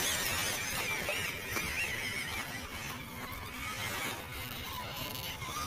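Small electric motor and gearbox of an MN99 1/12-scale Defender RC crawler whining, the pitch wavering as throttle and load change. Its tyres rustle over dry leaves and soil.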